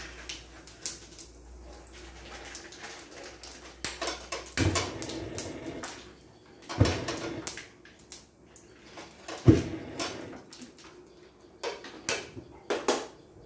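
Cooking utensils and pans knocking and clattering at a gas stove: a handful of sharp separate clanks, with two louder ones in the middle.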